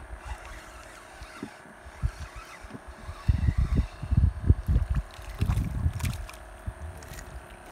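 Rumbling buffets of wind and handling on the phone microphone, strongest between about three and six seconds in, over a faint steady hum.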